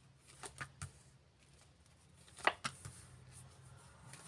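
Playing cards being drawn and laid face down on a table: a few light card snaps in the first second, then a louder slap about two and a half seconds in.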